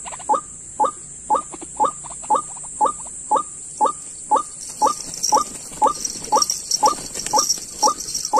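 White-breasted waterhen (dahuk) calling: a steady run of short, falling 'kruak' notes, about two a second, over a steady high hiss.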